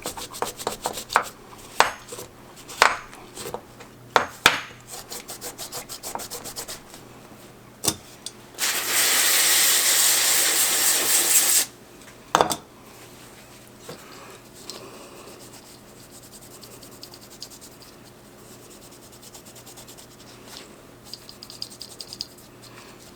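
A microfiber cloth rubbing briskly over a plastic ignition coil in quick back-and-forth strokes, wiping off carbon tracking. About nine seconds in, a loud steady hiss lasts about three seconds, after which the wiping goes on as a few faint rubs.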